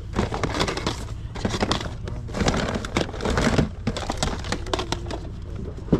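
Plastic video game cases clicking and clattering against each other as hands rummage through a plastic storage tote of games and cables.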